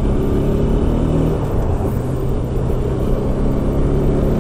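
Motorcycle engine running steadily at cruising speed while riding, heard with a low wind rumble on the camera's microphone.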